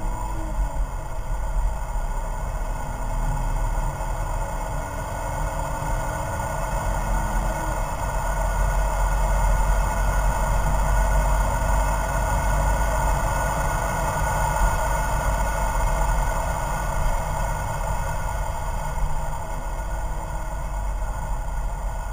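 BMW E46 330Ci's 3.0-litre straight-six under full-throttle acceleration, heard from inside the cabin. The engine note rises in pitch as it pulls through the gears, over loud road and wind noise.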